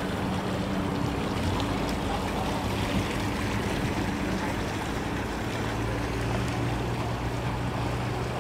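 Mercury 60 outboard motor running steadily as a small boat motors away, an even engine hum over a wash of water noise.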